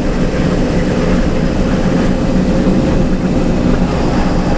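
Front-engined bus running steadily under way, heard from inside the cab beside the driver: an even engine drone with a level whine over tyre and road noise.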